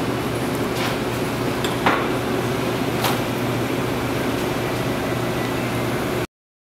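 Steady mechanical hum of a meat-cutting room, with three sharp knocks about a second apart as a butcher's knife strikes the cutting board while trimming fat from a beef top round. The sound cuts out abruptly near the end.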